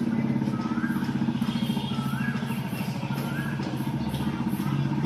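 A motor vehicle engine idling steadily with a fast, even pulse.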